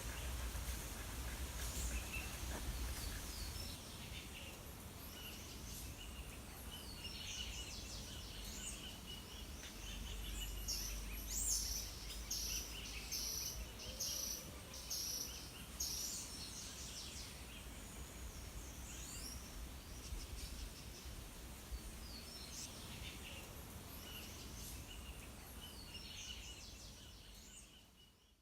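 Outdoor ambience of birds calling and chirping, with a quick run of repeated notes partway through, over a low rumble. The sound fades out near the end.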